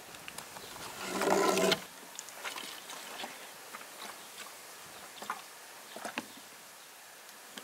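Brake fluid being poured from its bottle into a clear plastic bottle, a faint trickle with scattered small clicks of plastic. About a second in comes a short, louder sound of under a second with a steady pitch.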